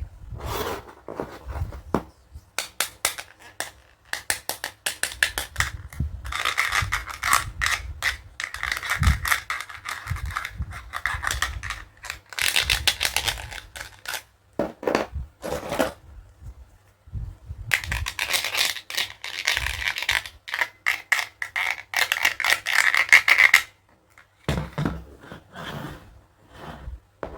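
Plastic packaging and toy dentist-kit pieces being handled during unboxing: rapid clicks and scrapes, with two long stretches of dense crackling.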